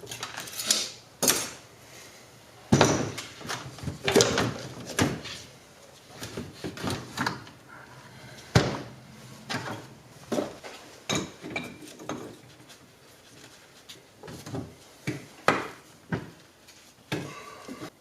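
Irregular clunks, knocks and scrapes of a removed steering rack and hand tools being handled and set down, the loudest knock about eight and a half seconds in.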